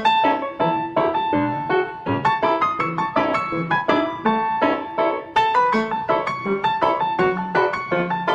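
Background piano music: a brisk tune of many quick, short notes at a steady pace.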